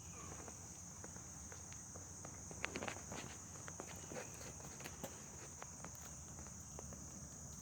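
Steady high-pitched insect buzz, with scattered light clicks and rustles on top, a cluster of them about three seconds in.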